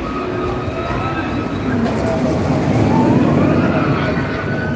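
Olympia Looping steel roller coaster train rumbling along its track, swelling louder about three seconds in, amid crowd chatter.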